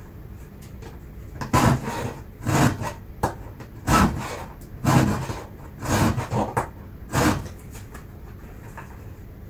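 Hand file rasping across a chainsaw chain's cutter teeth, sharpening the chain: six strokes about a second apart, starting about a second and a half in.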